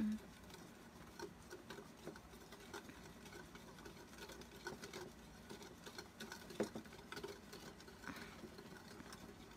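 A metal utensil whisking Dalgona coffee mix by hand in a ceramic bowl: a fast, faint run of clicks and scrapes against the bowl, with a sharper tap about six and a half seconds in. This is the hand-whipping stage, beating the instant coffee toward a foam.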